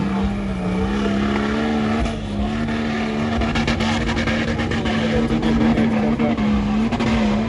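Off-road 4x4 engine running hard under load, its pitch holding nearly steady with slight wavering, with a run of sharp clicks and knocks in the middle.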